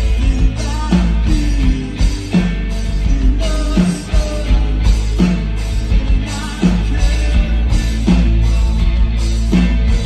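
Live rock band playing loudly: electric guitars, bass guitar and a drum kit keeping a steady beat.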